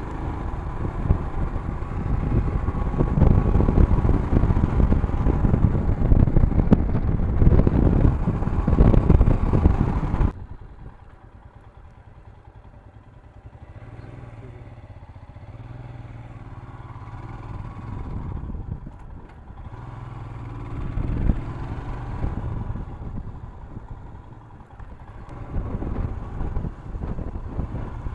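Motorcycle riding noise picked up by a helmet-mounted camera: heavy wind buffeting over the engine. About ten seconds in it drops suddenly to a quieter, steady low engine hum with lighter wind noise.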